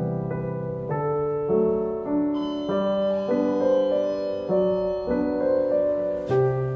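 Background music: a keyboard instrument playing a slow, gentle melody over sustained chords that change about every second.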